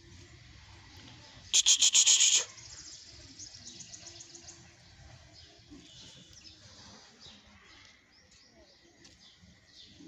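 Birds calling: one loud, harsh, rapidly pulsed call about one and a half seconds in, lasting about a second, then faint scattered chirping.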